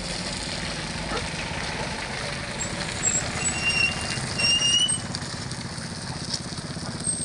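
Small truck's engine running steadily under load as the truck crawls through deep mud, a low, even engine drone. A few brief high whistles sound about three to five seconds in.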